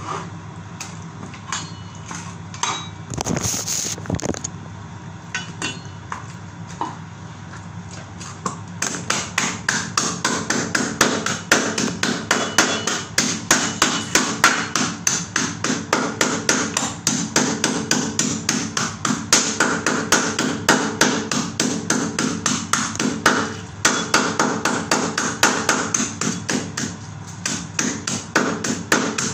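Meat cleaver chopping a skinned black chicken on a plastic cutting board: a few scattered knocks at first, then from about nine seconds in a fast, steady run of chops, about three a second.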